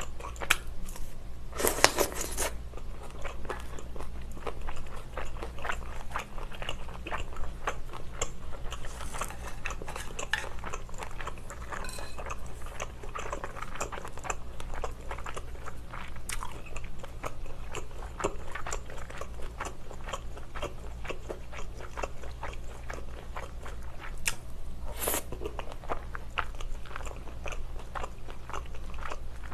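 Close-miked eating sounds: a person biting and chewing a spicy chicken skewer and tteokbokki rice cakes, with many small wet mouth clicks throughout and two louder bites, a couple of seconds in and near the end. A steady low electrical hum runs underneath.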